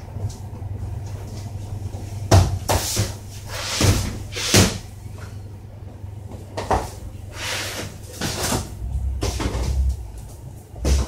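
Irregular knocks and rustles from handling a hand-held camera as it is moved along the shelves, over a steady low rumble. The loudest bumps come a couple of seconds in and again around four and a half seconds.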